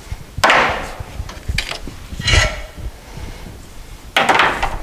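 Metal banding straps being pulled free from around a drum sander, scraping and clattering against the machine and a wooden trailer deck in several short bursts, the loudest about half a second in and again near the end.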